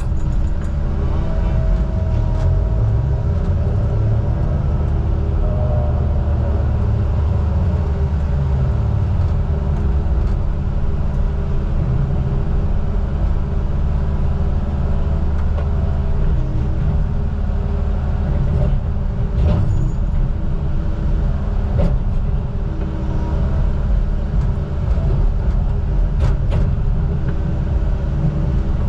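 Heavy logging machine's diesel engine running steadily, its pitch shifting a little as it works, with a few sharp knocks about two-thirds of the way through.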